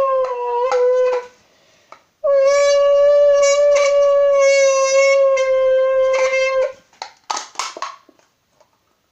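Blowing through a large drink can folded and twisted in the middle, making a buzzing, horn-like tone meant to imitate a car engine. One note slides slightly down and stops about a second in, then a long steady note holds for about four seconds, followed by a few short breathy puffs.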